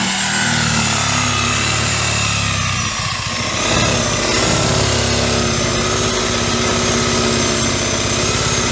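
Reciprocating saw running steadily, its blade cutting into plywood sheathing, with a brief dip in speed about three seconds in.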